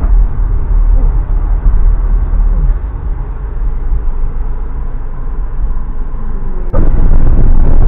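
Car cabin noise while creeping forward slowly: a steady low engine and road rumble. About seven seconds in it turns suddenly louder and brighter.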